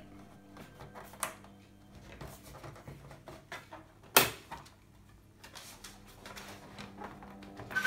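Plastic snap-fit clips and panel edges of an all-in-one computer's back cover clicking and creaking as the cover is worked loose by hand, with one sharp loud snap about four seconds in.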